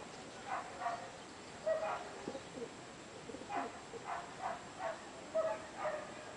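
A dog barking, short barks in a few irregular runs.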